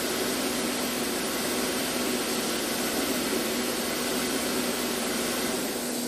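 2013 VW Tiguan's turbocharged four-cylinder engine idling steadily while misfiring, with misfires logged on cylinders 4 and 2 and one cylinder disabled by the engine computer. It is switched off at the very end, and the sound falls away.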